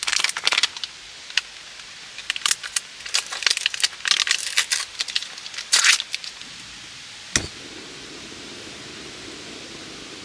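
Plastic film and label of a meat tray being peeled and handled, a run of irregular crinkling crackles for about six seconds. One sharp click follows, then a steady hiss of rain.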